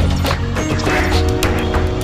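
Music with held notes over a regular beat.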